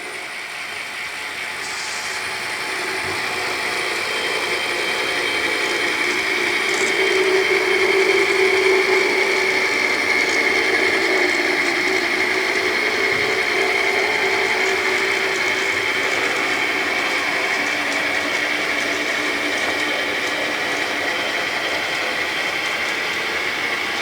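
Intermountain model locomotive's own motor and gears growling as a model freight train runs past, growing louder over the first several seconds and then holding steady. The locomotive has no sound chip; the growl is its mechanism.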